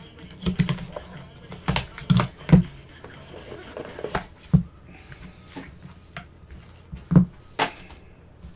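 Gloved hands handling a 2021 Metal football trading-card box and its packs: a run of sharp taps and knocks, the loudest about two and a half seconds in and about seven seconds in.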